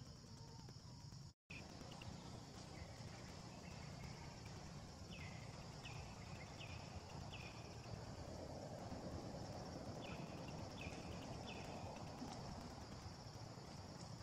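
Quiet outdoor ambience with a steady high hum, broken by a brief dropout about a second in. Short falling chirps come in a run of four about five seconds in and a run of three about ten seconds in.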